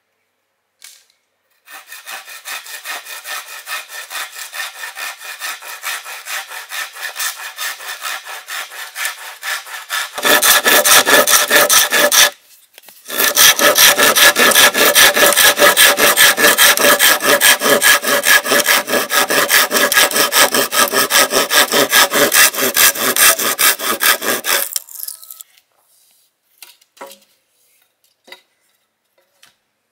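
Hand saw cutting through bamboo in steady back-and-forth strokes, about three a second. The sawing is fainter at first and grows much louder about ten seconds in, stops briefly, then carries on until it ends about 25 seconds in, followed by a few light knocks.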